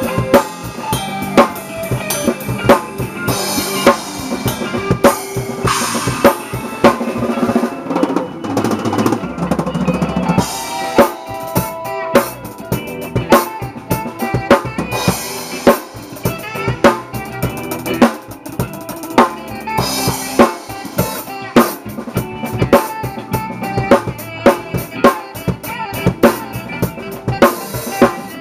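Acoustic drum kit played in a funk groove: steady bass drum and snare strokes under busy cymbal work, with a crash cymbal wash every few seconds.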